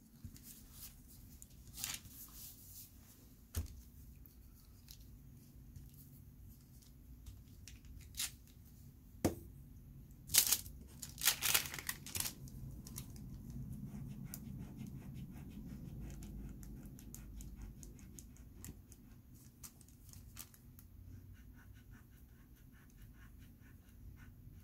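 Pastel pencil scratching on drawing paper in short strokes, with a sheet of tissue paper rustling under the hand and pencils clicking together in the other hand. The loudest rustling and scratching comes in a cluster about ten to twelve seconds in.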